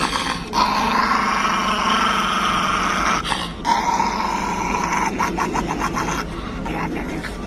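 Small black-and-tan dog growling with its teeth bared, a long continuous growl broken briefly about three seconds in, then choppier, stuttering growls from about five seconds in.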